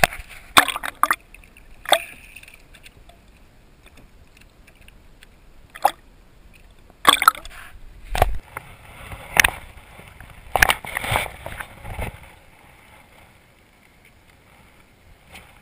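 Sea water slapping and sloshing against a kayak's hull right at a waterline-level camera, in irregular splashes with gurgling between them, one with a low thump, growing quieter near the end.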